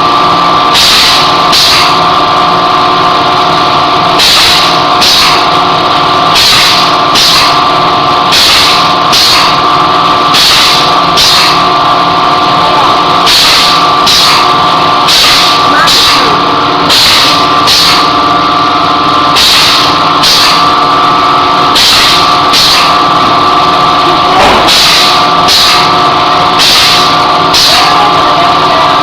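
Continuous band bag sealer running: a steady motor whine, with short hissing bursts about once a second at uneven spacing.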